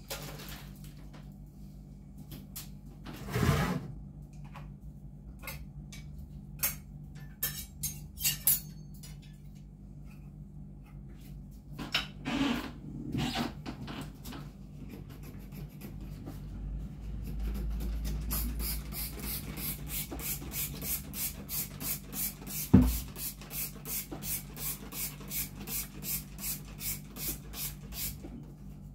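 Kitchen cleaning: scattered clicks and knocks, then steady rhythmic scrubbing, a little under three strokes a second, broken by one sharp knock about 23 seconds in.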